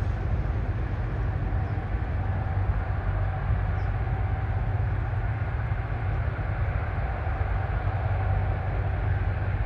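Jet airliner engine noise, a steady low rumble with a faint whine on top.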